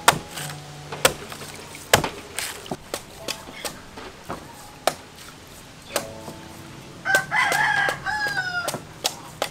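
A large knife chopping into the husk of a green coconut on a wooden block, sharp knocks every second or so. A rooster crows once, about seven seconds in, one call falling in pitch at the end.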